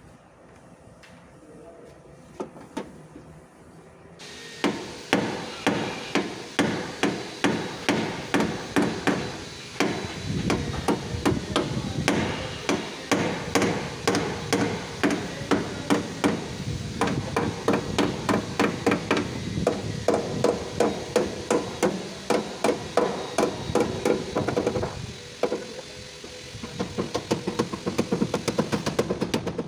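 Body hammer striking the sheet metal of a 2022 Hyundai Tucson's rear fender to work out a dent. One lone blow, then from about four seconds in steady hammering at roughly two blows a second, quickening near the end.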